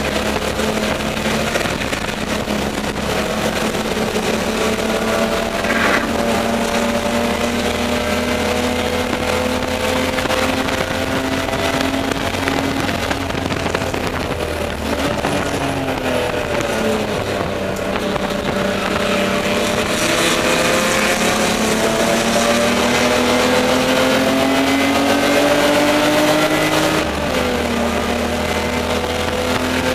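Spec E30 BMW race car's straight-six engine heard from inside the stripped-out cabin, revs climbing and falling through the gears. The revs dip around the middle, then make a long climb and drop with a gear change near the end.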